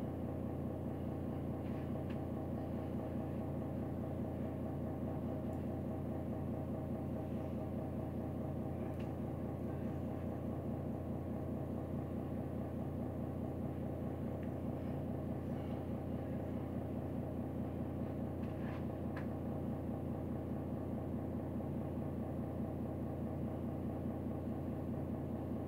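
A steady, unchanging low motor hum with a fine rhythmic flutter, like a small electric fan or appliance running, with a few faint clicks.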